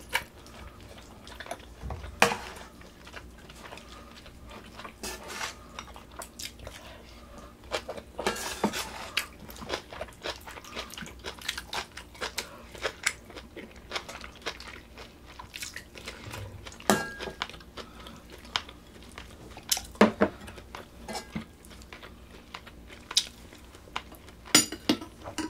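Cutlery clinking against bowls and dishes during a meal of pork-bone soup, with chewing in between. The clinks come at irregular intervals; the loudest is about two seconds in and another is about twenty seconds in.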